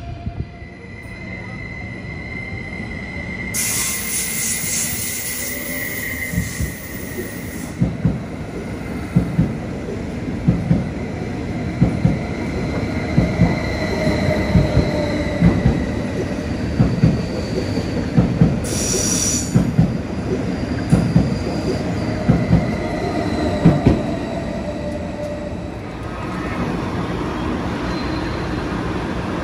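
Train wheels on the rails: a thin high wheel squeal for the first several seconds, then a long run of regular clacks over the rail joints, about one a second, under a steady rumble that eases near the end.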